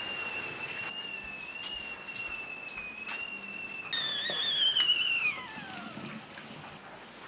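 Kettle on a wood fire whistling at the boil: a steady high whistle. About four seconds in, as the kettle is lifted off the flames, the whistle gets louder, then slides down in pitch and dies away.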